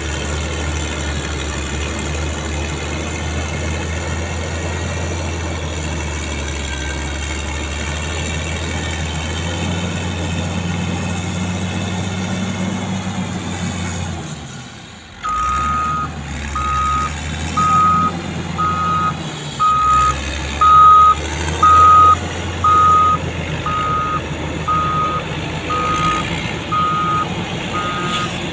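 Caterpillar motor grader's diesel engine running steadily. About halfway through, a reversing alarm starts over the engine noise, beeping about once a second as a grader backs up.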